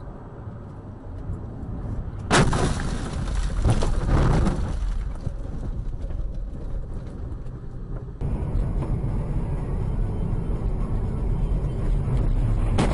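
A car crash heard from inside the car: a sudden loud bang about two seconds in, followed by a couple of seconds of crashing and rumbling noise. Then a steady low rumble of engine and road noise from a car driving, with a short knock near the end.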